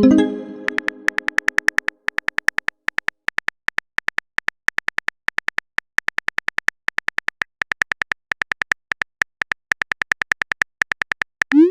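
Chat-app sound effects: a message chime at the start that rings out over about two seconds, then rapid keyboard-typing clicks, roughly ten a second in bursts with short gaps. A short rising blip comes near the end.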